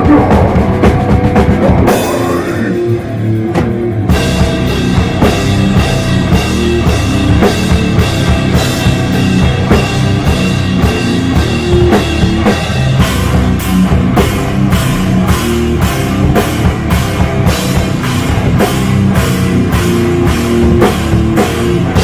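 A hardcore band playing live and loud, with distorted guitar, bass and drum kit. The sound thins out about two seconds in, the full band crashes back in about four seconds in, and the song cuts off right at the end.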